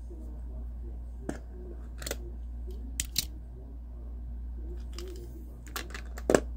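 Small sharp clicks and taps of a die-cast toy truck being handled, the loudest as it is lifted off a display turntable near the end, over a steady low hum.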